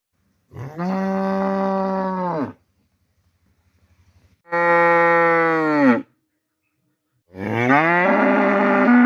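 A cow mooing: three long moos with a short gap between each, every one holding a steady pitch and then sliding down as it ends.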